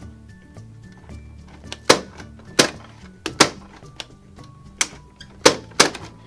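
Plastic toy popcorn maker's crank mechanism clacking as the handle is turned, about eight sharp, loud clacks at uneven spacing starting about two seconds in, each marking the mechanism popping dough pieces out. Background music plays underneath.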